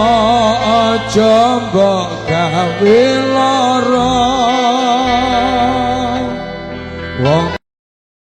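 Javanese devotional song, sholawat style: a wavering, ornamented melody line over a steady low backing. It cuts off suddenly about seven and a half seconds in.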